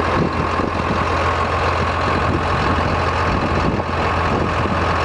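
John Deere 8410 tractor's six-cylinder diesel engine idling steadily, with a steady whine over the low engine hum.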